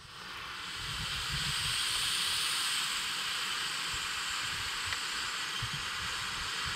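Happy Hour ground fountain firework spraying gold glitter sparks: a steady rushing hiss that builds up over the first second and then holds evenly.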